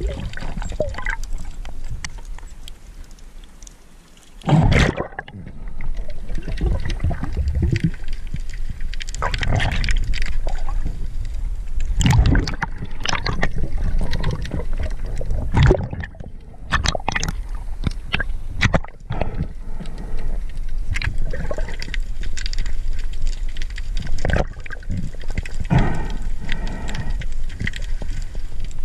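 Water gurgling and sloshing around a spearfisher's underwater camera, with irregular knocks and clicks. The loudest comes about four and a half seconds in, after a quieter stretch.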